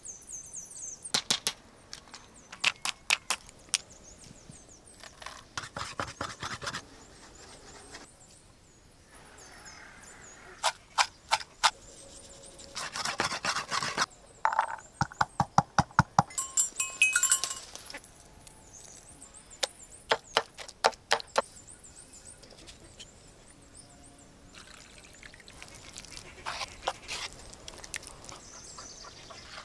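Bursts of rapid knocking and tapping from preparing food by hand, several runs of sharp strikes separated by quiet pauses, with a short scraping or mixing stretch near the middle.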